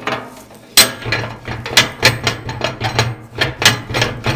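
Rapid metallic knocking and clanking, about four strikes a second starting about a second in, as the latch of a wood-fired boiler's firebox door is worked open; a steady low hum runs underneath.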